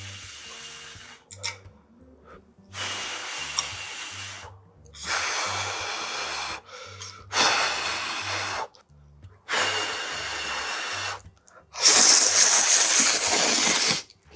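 A person slurping instant ramen noodles, five long slurps with short pauses between, the last the loudest.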